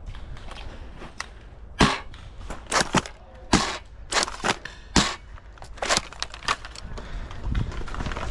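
A run of about nine sharp, irregular clicks and snaps, spread over four seconds in the middle.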